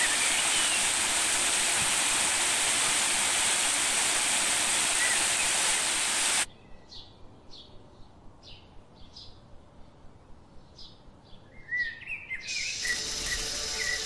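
Stream water rushing over a small rocky cascade, with a few bird chirps. After a sudden cut about six seconds in, a quieter forest ambience of short, repeated high chirps, then a few lower bird chirps, with music starting near the end.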